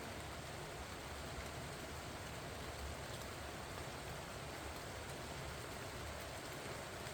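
Steady rain falling on pumpkin vines and their leaves: an even hiss with a few faint drop ticks scattered through it.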